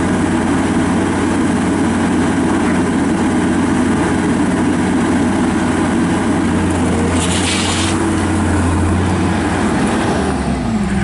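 John Deere CT332 compact track loader's diesel engine running steadily at high throttle, with a brief hiss about seven seconds in. Near the end the engine speed drops down toward idle.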